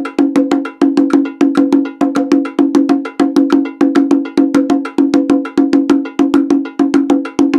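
Conga played with bare hands: open tones ring in quick, even strokes, in a syncopated eighth-note figure that falls on every eighth note except the downbeats. A programmed percussion backing track plays along.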